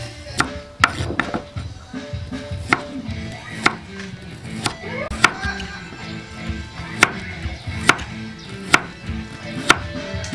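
Chef's knife slicing a red onion on a wooden chopping board, the blade knocking on the board about once a second, over background music.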